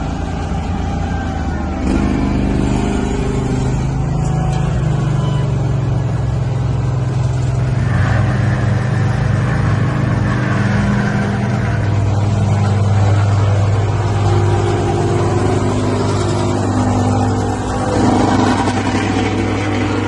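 Diesel engines of an asphalt paver and a small double-drum roller running steadily as the crew lays and compacts fresh asphalt.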